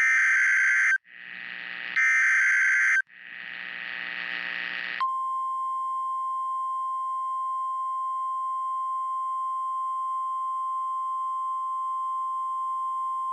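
NOAA Weather Radio Emergency Alert System header: a one-second burst of SAME digital data tones, a stretch of rising radio hiss, a second data burst and more hiss. About five seconds in, the steady 1050 Hz weather alert tone starts and holds unbroken, signalling the tornado warning that follows.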